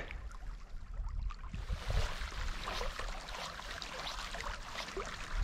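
A shallow river flowing, as an even wash of water noise with an uneven low rumble under it and a few faint ticks.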